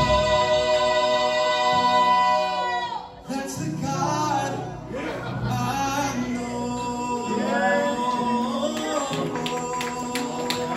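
Gospel vocal group singing live in harmony with musical accompaniment: a long held chord ends about three seconds in, then bending vocal phrases carry on over the music.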